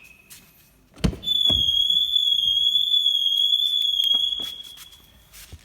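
A thump about a second in, then the Mercedes-Benz W212's factory alarm sounding one loud, steady, high-pitched tone for about four seconds: the factory security system triggered by the car being opened while armed.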